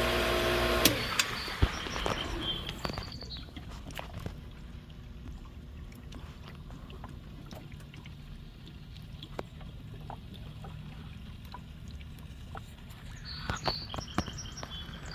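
Pool pump running with a steady low hum while its suction-side plumbing draws in air through a leaking glue joint. A louder, whining sound in the first second cuts off suddenly, leaving the hum with scattered faint clicks.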